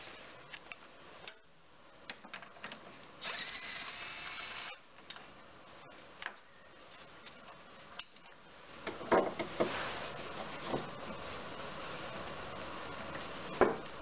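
Socket ratchet and metal hand tools working on engine mount bolts: scattered metal clicks and clinks, a steady rasping stretch of about a second and a half some three seconds in, and louder clanks from about nine seconds on, the sharpest near the end.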